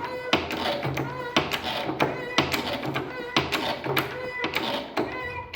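Hand pressure-test pump being worked steadily, a knock about twice a second with a squeak on each stroke.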